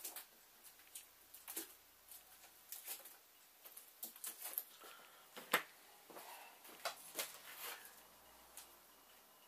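Faint, irregular small clicks, taps and rustles, as of small objects being handled at close range; the sharpest click comes about five and a half seconds in.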